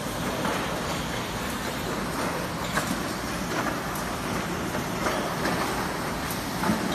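Steady machine noise from an automatic multi-iron soldering robot and the factory machinery around it, with a few light clicks.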